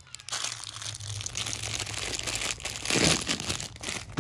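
Wrapping and packaging being crumpled and rustled by hand while gifts are stuffed into a box: continuous crinkling, louder a little before three seconds in, ending with a sharp knock.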